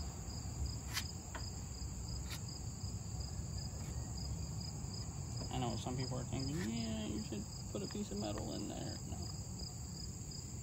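Insects chirring steadily in high, unbroken tones, with a faint voice murmuring for a few seconds in the middle.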